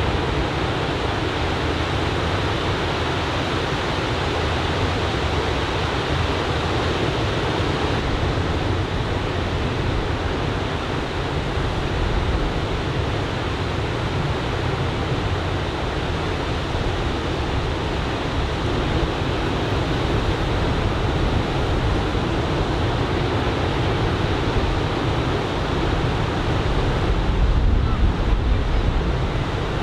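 Surf from a typhoon swell breaking and washing on a sandy beach, a steady rush of waves, with wind buffeting the microphone and a stronger gust near the end.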